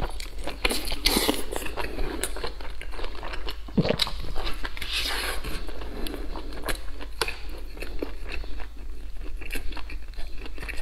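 Close-miked eating sounds: a person biting and chewing a large mouthful of braised pork, wet and sticky, with many small clicks of lips and tongue.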